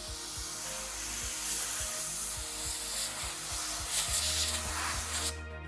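Steady rough rushing noise from cleaning dust off a GTX 1070 graphics card's heatsink, which cuts off suddenly about five seconds in; background music plays underneath.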